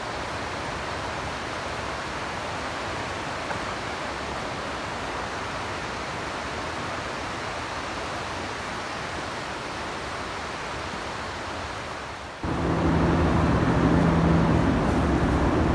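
Steady rushing of the Río Olivia's water beside a forest trail. About twelve seconds in it cuts to a louder, steady hum with a low tone, like a motor running.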